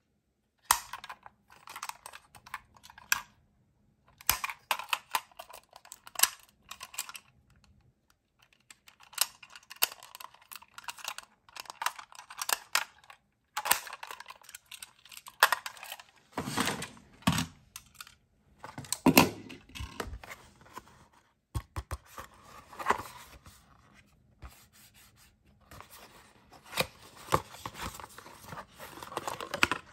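Irregular clicks, taps and rattles of a die-cast toy ambulance being handled in the hands, its small door opened and shut, with a toy's cardboard box handled near the end.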